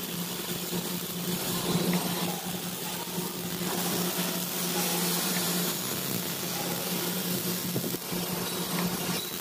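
Arc welding on steel grating: the steady crackling sizzle of the welding arc runs on without a break, over a steady low hum.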